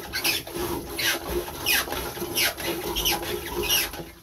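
Manual marine toilet's hand pump being worked in a steady rhythm, about one stroke every two-thirds of a second. Each stroke brings a short sound falling in pitch as raw sea water is drawn into the bowl.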